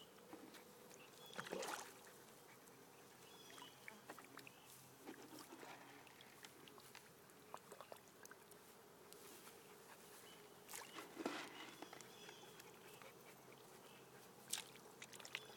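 Faint water splashes from a dog pawing at fish in shallow water, three brief ones about one and a half, eleven and fourteen and a half seconds in, over near silence.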